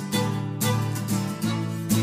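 Acoustic string band playing an instrumental passage of a sea shanty: strummed acoustic guitar with banjo and a mandolin-family instrument, about two strong strums a second.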